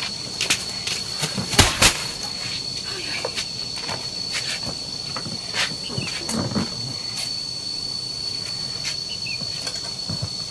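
An insect trills steadily on one high tone, with scattered clicks and rustles over it and a sharper double knock about two seconds in.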